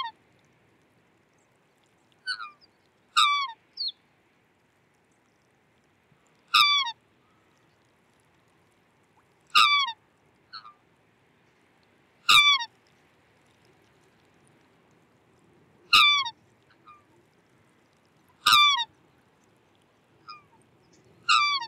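Black swan giving short, high bugling calls that bend down in pitch at the end, a louder call every three seconds or so with softer ones in between.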